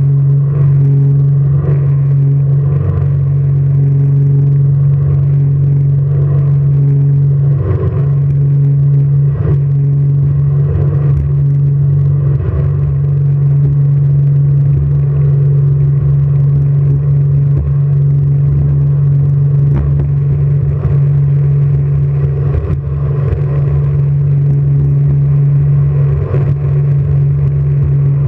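Jet boat engine running at a steady, unchanging pitch with a strong low drone, with occasional brief knocks or thumps over it.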